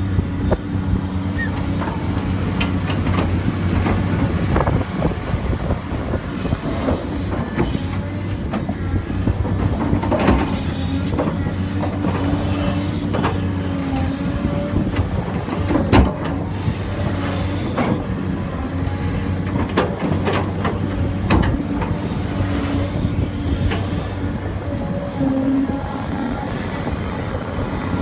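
Tracked excavator's diesel engine running steadily while its bucket digs and scoops dirt from a trench, with scattered clanks and knocks from the bucket and linkage and one sharp knock about halfway through.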